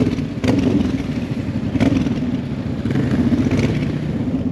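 Honda Transalp XL700V's V-twin engine, fitted with a decat header pipe, running steadily while riding slowly through town, with a few short clicks over it.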